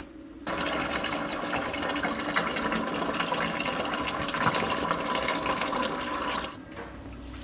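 Water pouring in a thin stream from a CNC plasma table's water tray into a container below as the table is drained, a steady splashing that starts about half a second in and stops about six and a half seconds in.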